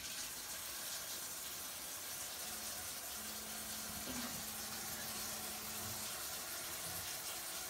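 Kitchen tap running steadily into a sink, an even continuous rush of water.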